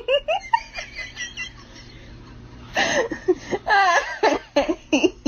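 High-pitched laughter in quick repeated bursts, with a quieter pause of about a second and a half in the middle.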